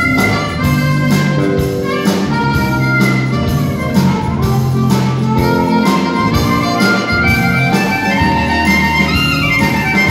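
Live rock band playing an instrumental passage: drum kit, electric bass and electric guitar, with a held lead melody line over a steady beat.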